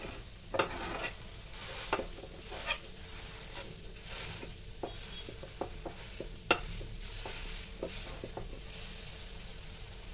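Ground urad dal paste sizzling in oil on a nonstick tawa as it is roasted until pinkish, while a metal spatula stirs it, scraping and tapping the pan in a run of sharp clicks.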